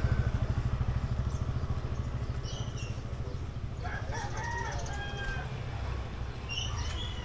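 A motorcycle engine running with a rapid low pulse, fading over the first few seconds, while a rooster crows about four seconds in.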